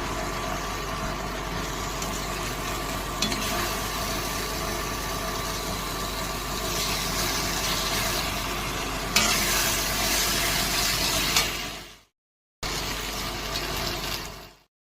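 Potato and aubergine sabzi sizzling as it fries in a pan, with a few sharp knocks along the way. The sound cuts out twice near the end.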